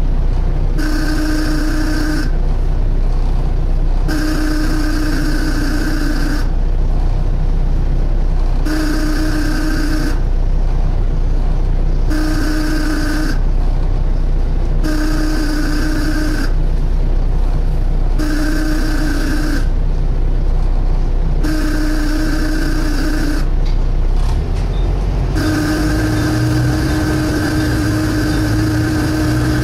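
Loud suction noise from a Volvo B7TL double-decker bus, heard from inside the bus: a hissing whine that cuts in and out about every two seconds over the steady engine rumble. Near the end the whine holds on continuously as the engine note rises.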